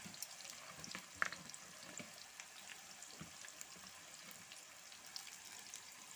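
Sliced onions deep-frying in hot oil to make birista: a steady sizzle with scattered crackles, and one sharp click about a second in.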